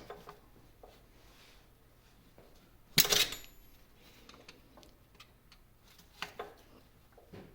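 Metal hand tool clinking and scraping against the castle nut and gears inside a 1950 LeBlond Regal lathe headstock while the nut is worked loose. A few light clicks, one sharp ringing clink about three seconds in, and more small taps near the end.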